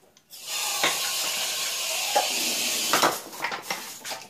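A steady hiss starts just after the beginning and cuts off about three seconds in. A few clinks of cooked snail shells against the aluminium bowl sound through it as the snails are picked out with a wooden stick.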